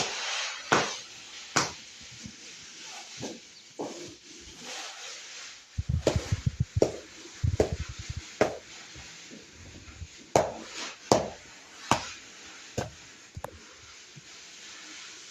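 Irregular sharp knocks and taps, about a dozen, with a quicker run of duller thuds in the middle.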